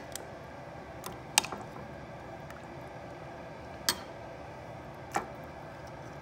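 Metal kitchen tongs clicking against the rim and side of an enamelled Dutch oven four times, sharp and brief, the second the loudest, while pieces of veal are set into the broth. A faint steady hiss runs underneath.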